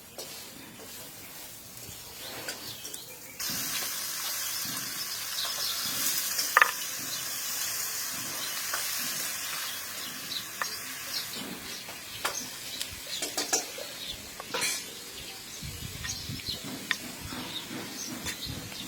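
Food frying in a pan, with stirring scrapes and knocks of a spoon on the pan. The sizzle starts suddenly a few seconds in and dies down after about eight seconds, with one sharp knock in between.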